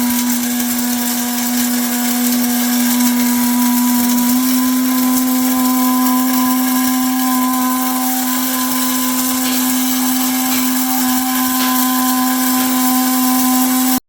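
Atomberg BLDC mixer grinder's motor running steadily while grinding pepper to powder in the grinder jar: a loud, steady whine over a gritty noise. The pitch steps up slightly about four seconds in, and the sound cuts off abruptly at the end.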